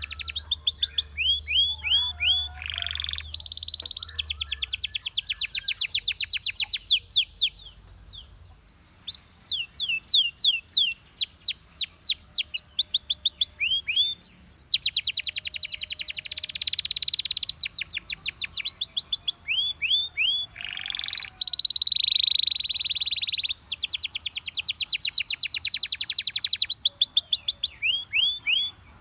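Belgian canary singing: long phrases of quick, repeated sweeping notes alternating with dense, rapid trills, with a brief pause about eight seconds in.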